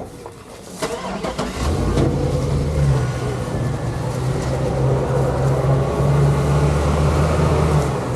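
Tractor engine picking up revs about a second and a half in and running steadily under load as it pulls ahead, after a few short clicks and knocks.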